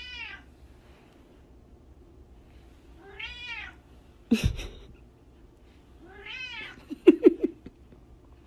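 A cat meowing three times, about three seconds apart, each a short call that rises and falls in pitch: a hungry cat calling for food. A sharp thump comes just after the second meow, and a quick rattle of knocks follows the third.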